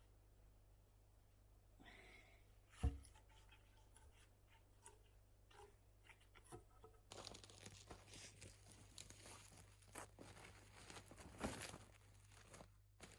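A single knock, then about five seconds of dense crinkly rustling with scattered clicks that stops suddenly, like something being crumpled or torn.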